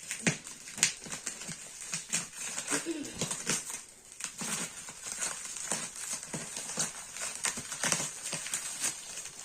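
Irregular clicks, taps and rustles of a package being handled and opened, with a short whine about three seconds in.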